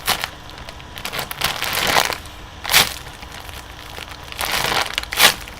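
Jumbo panda bun squishy being handled and squeezed close to the microphone: rustling handling noise with two short, sharp crackles, about three seconds in and near the end.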